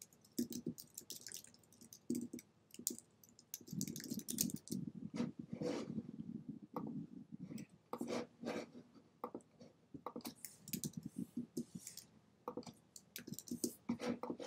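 Typing on a computer keyboard mixed with mouse clicks: irregular runs of soft keystroke clicks with short pauses between.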